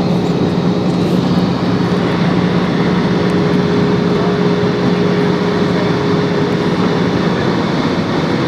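Airliner cabin noise as the plane comes in to land: a steady rush of engine and airflow noise with a steady hum underneath.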